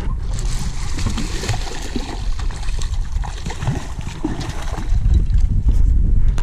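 Hooked bass thrashing and splashing at the water's surface beside the boat as it is reeled in, in a run of quick sharp splashes; a low rumble joins about five seconds in.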